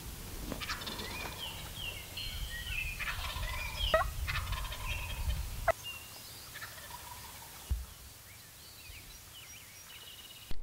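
Wild turkey tom gobbling, with the loudest gobble about four seconds in, over a low rumble that stops about halfway through.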